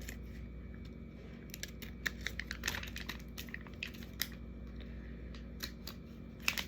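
Scattered light clicks and taps of small items and packaging being handled, starting about a second and a half in, over a steady low hum.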